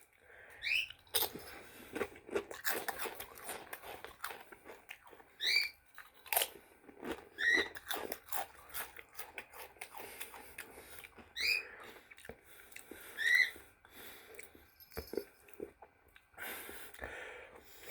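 Close-up crunching and chewing of tortilla chips (Flaming Hot Limon Doritos), a run of sharp crackly clicks. Interrupting it about five times are short rising chirps from a pet bird, the loudest sounds here.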